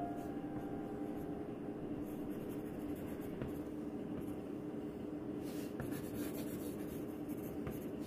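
Pencil scratching on paper as a portrait is sketched and shaded in short strokes, with a run of quicker strokes about five and a half seconds in, over a faint steady hum.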